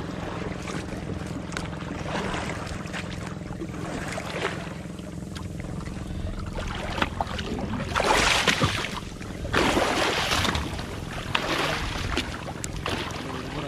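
A boat's engine hums steadily. In the second half there are several bursts of water splashing against the outrigger boat's hull.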